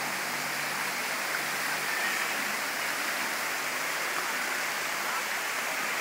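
Steady rush of water from a waterfall, an even hiss with no breaks.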